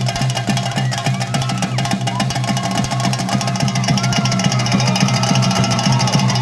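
Temple drum ensemble of chenda drums playing a fast, dense, unbroken rhythm, with rising and falling tones heard faintly over it.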